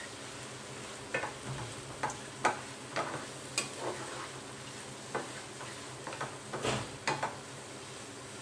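Wooden spatula stirring and scraping a tomato-onion masala around a stainless steel frying pan, about a dozen irregular strokes, over a steady soft sizzle as the tomatoes fry down into a mash.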